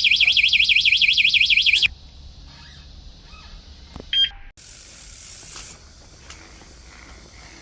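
Bicycle anti-theft alarm sounding a loud, rapidly warbling siren that cuts off abruptly about two seconds in. A single short beep follows a little after four seconds in.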